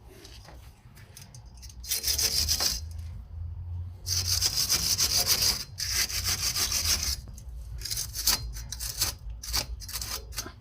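Hand scraping in strokes on a part: one short stroke about two seconds in, two long strokes a little later, then a run of short, quicker strokes near the end.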